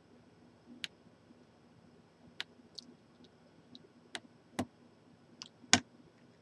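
Irregular sharp clicks and taps of small hard objects being handled, about seven in all, the loudest near the end.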